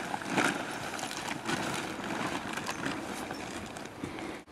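Synthetic tent fabric and ground sheet rustling and crinkling as they are lifted, shaken out and spread on the ground, with a steady scratchy rustle and scattered crackles.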